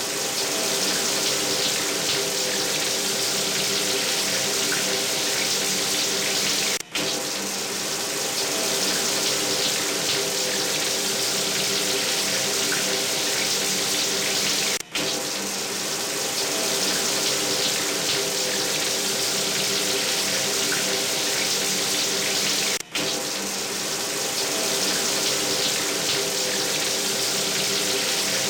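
Shower running: a steady, even spray of water, with a faint ringing hum beneath it. It cuts out very briefly three times, about eight seconds apart.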